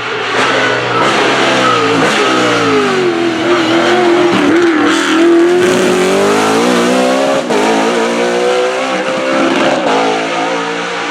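BMW Z4 GT3 race car's naturally aspirated 4.4-litre V8 running at high load, its revs swinging down and up several times over the stretch.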